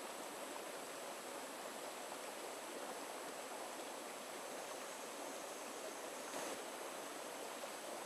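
Shallow rocky stream flowing steadily over stones, a continuous babbling rush of water.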